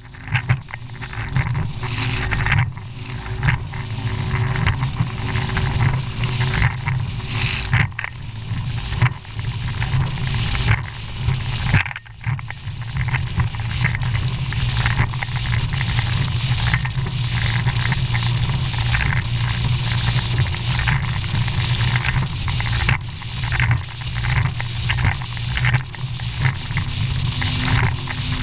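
Bass boat running fast through rough, choppy water. The hull strikes the waves with repeated, irregular thumps and splashes over a steady low rumble of engine and wind on the microphone.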